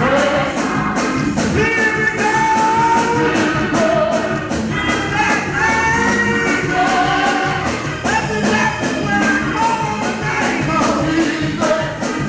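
A woman sings a gospel hymn into a microphone, with the band playing behind her and a steady drum beat.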